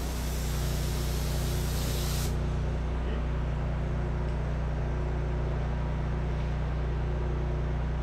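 Steady hiss over the low, even hum of an engine running; the hiss cuts off suddenly about two seconds in, leaving the engine hum alone.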